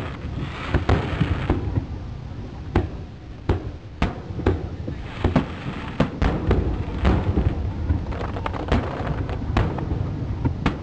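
Aerial fireworks shells bursting high overhead in quick, irregular succession, with sharp bangs over a low rumble. Bursts of crackle come near the start and again about halfway through.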